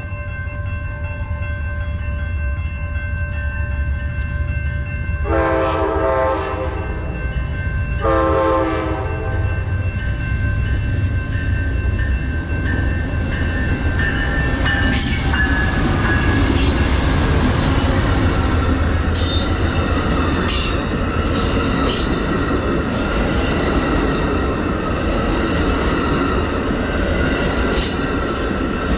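Amtrak passenger train approaching and passing: the locomotive sounds two horn blasts about five and eight seconds in over a steady rumble. From about halfway through, the wheels clatter and click sharply over the rail joints as the train goes by.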